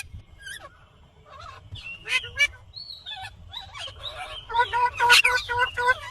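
Indian ringneck parrot calling: scattered short squawks and gliding calls, then, about two-thirds of the way in, a fast run of repeated harsh notes, about six a second, the loudest part.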